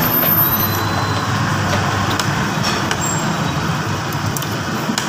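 Spoon and fork clinking lightly on a plate a few times, over a steady rumbling background noise.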